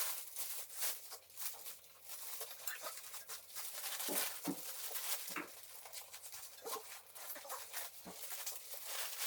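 Scattered light clicks and a few duller knocks, irregular, of parts being handled and shifted by hand.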